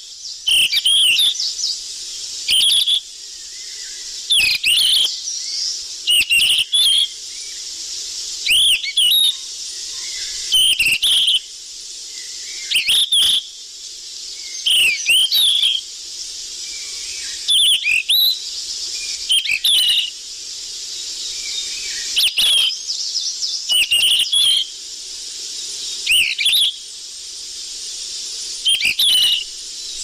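Yellow-rumped flycatcher (sikatan emas) calls in short, loud bursts of quick high notes about every two seconds, over a steady high hiss. It is a busy lure-call recording.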